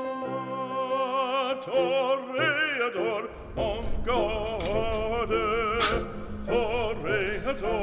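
Background music: operatic singing with strong vibrato over orchestral accompaniment.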